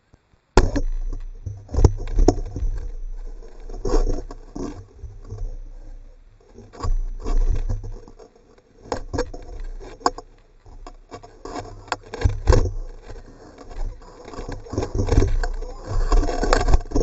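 High-altitude balloon payload's onboard camera after the balloon has burst: the payload tumbles and jerks on its lines, giving irregular rattling, scraping and knocking over a constant low rumble of air buffeting the microphone. It begins suddenly about half a second in.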